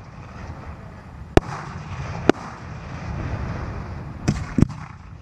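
Fireworks going off: four sharp bangs, the last two close together near the end.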